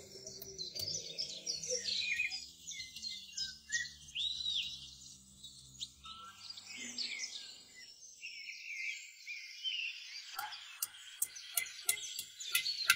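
Small birds chirping and twittering in a steady background of bird song, with a quick run of light taps near the end.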